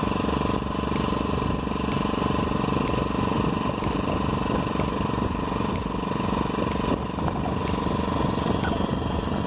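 Small engine of a motorized bicycle running steadily at cruising speed, with strong wind buffeting the microphone.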